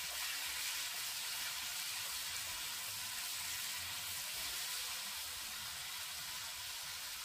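Steady sizzle of snake gourd and potato pieces frying in hot oil in a wok as they are turned over with a spatula.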